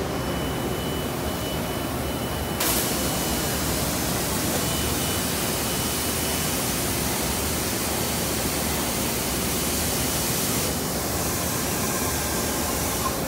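Steady hiss and hum of running machinery, with a stronger high hiss that comes on suddenly about two and a half seconds in and falls away near the end.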